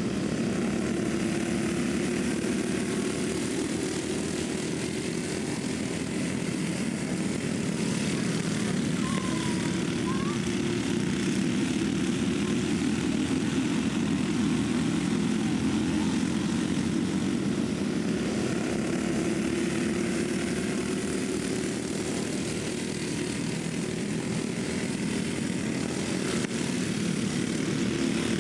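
Several racing kart engines running at speed in a pack on a dirt oval, a steady, unbroken buzzing drone.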